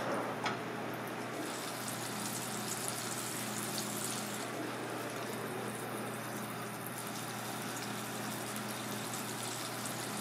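Hot oil sizzling and crackling in a small cast-iron pot as a flour-dredged piece of food is dropped in to deep-fry. There is a short click about half a second in, and a steady low hum underneath.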